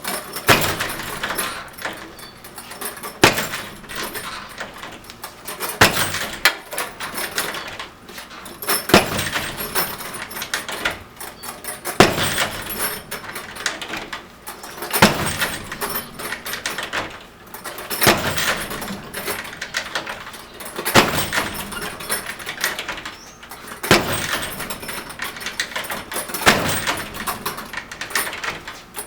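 A locked door being struck by a 90-pound heavy bag: a heavy thud about every three seconds, around ten blows in all, each followed by the door and its hardware rattling as it settles.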